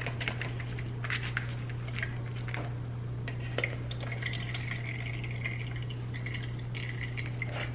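Liquid from canned bean sprouts trickling and dripping through a plastic colander into a bowl, with faint rustles of the sprouts, over a steady low hum.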